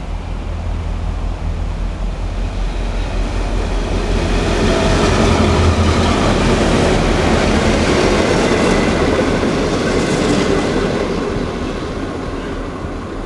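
Freight train headed by a pair of EMD diesel-electric locomotives (a G16 and a G26) passing close by. The locomotives' low engine rumble builds as they approach, the wheel and wagon noise is loudest in the middle as the train goes past, and it fades near the end.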